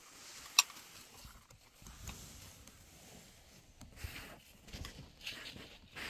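Small handling sounds of a meal eaten on a floor cloth: flatbread and cloth rustling and light taps of dishes, with one sharp click about half a second in.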